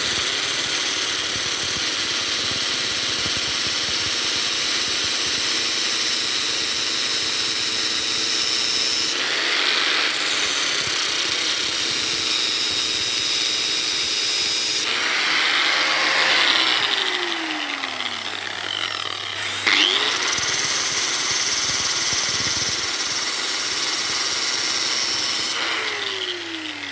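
Electric power tool running at speed while 60-grit sandpaper works a steel suspension pin, a loud, hissing grind. The motor cuts out and spins down with a falling whine about two-thirds of the way through, starts up again, then spins down once more near the end.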